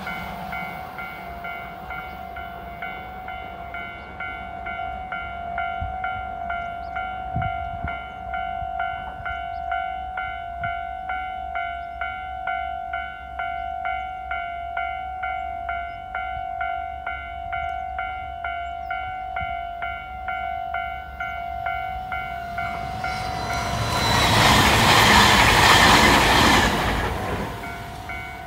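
Railway level crossing warning bell ringing steadily, an electronic ding repeated about one and a half times a second. Near the end a loud rushing noise swells up for about four seconds and dies away.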